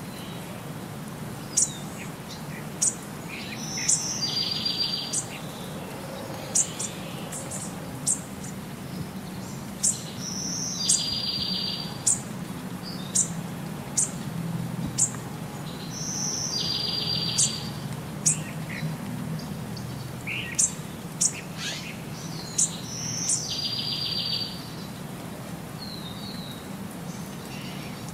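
Birds chirping: short, sharp high chirps about once a second and a longer buzzy trill that recurs about every six and a half seconds, over a steady low hum.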